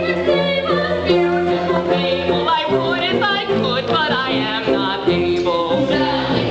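Operetta chorus of voices singing together with instrumental accompaniment, the melody moving up and down continuously.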